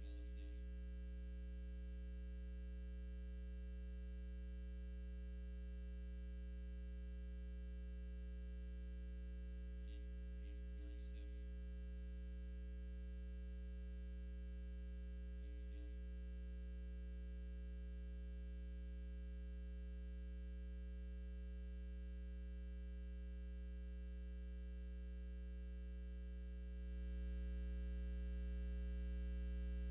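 Steady electrical mains hum with its overtones, with a few faint brief sounds over it; the hum steps up a little in level near the end.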